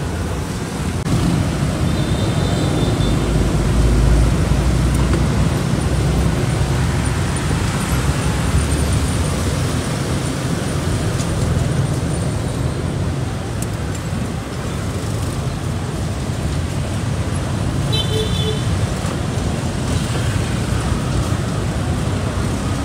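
Busy street traffic, cars and motorbikes passing, as a steady low rumble, with a couple of brief high tones.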